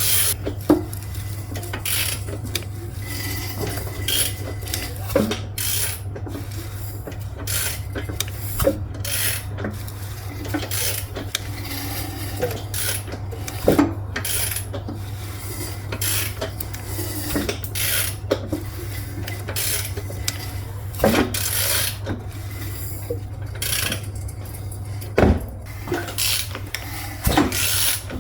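Metal tools and engine parts clinking, tapping and scraping at irregular intervals over a steady low hum.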